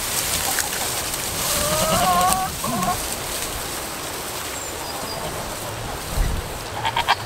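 A domestic hen calls with a drawn-out, wavering note about one and a half seconds in, followed by a shorter call, over a steady background hiss. A short, rapidly pulsing call starts near the end.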